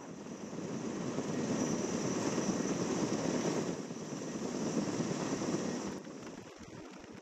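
Erickson S-64 Aircrane heavy-lift helicopter's rotor and engine noise, a broad rushing sound with a faint high whine. It swells about a second in and falls away near the end.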